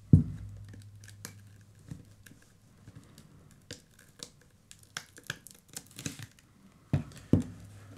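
Sharp click, then scattered small clicks, taps and short scrapes as an iPhone XR's glued display is pried loose from its frame, with a faint low hum underneath.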